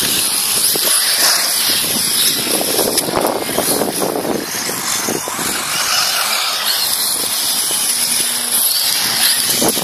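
1/8-scale Serpent 811 Be Cobra brushless electric RC buggies driving fast across grass, their motors giving a steady high whine over a rushing noise.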